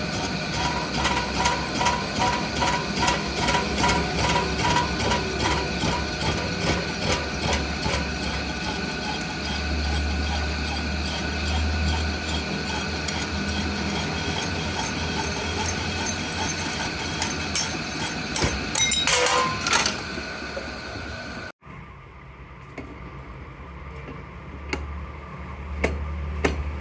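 Workshop machinery running with a regular mechanical clicking of about two to three clicks a second over a steady hum. It cuts off suddenly near the end and gives way to quieter machine noise.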